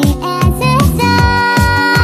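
Electronic music with a steady beat and deep bass drum hits, with a long held melodic note in the second half.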